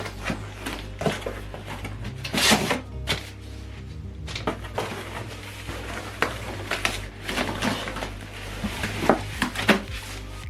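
Background music with a steady bass, under scattered clicks, taps and rustles of cardboard and paper packaging being handled while a soundbar is unboxed.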